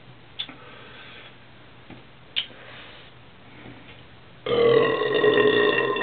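A man's long, loud burp on a steady pitch, starting about four and a half seconds in and lasting about two seconds, brought up by drinking beer. Two short clicks come before it.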